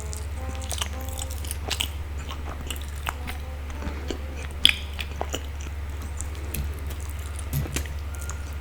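Close-miked chewing of a sticky glutinous rice ball: irregular wet smacks and small clicks, with one sharper click about halfway through, over a steady low hum.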